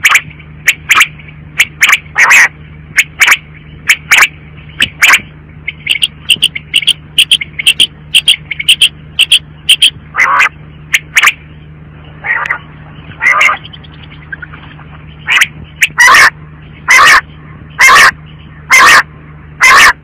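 Female common quail calling: short, sharp calls repeated many times, some in pairs and some in quicker runs of about three a second, loud enough to sound clipped. A steady low hum runs underneath.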